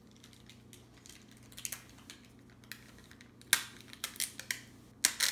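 Clear packing tape being handled and pulled off its roll: a few faint clicks, then short, sharp crackling rips from about three and a half seconds in, loudest near the end.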